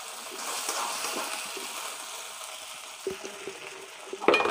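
Chilli chicken sizzling in a black iron kadhai while a steel spatula stirs and scrapes through it, with a loud ringing clank of the spatula against the pan near the end.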